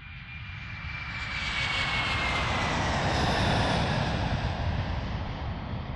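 Aircraft fly-by sound effect: a noisy rush that swells to its loudest a little past the middle and then eases off, with a thin whistle sliding slowly down in pitch.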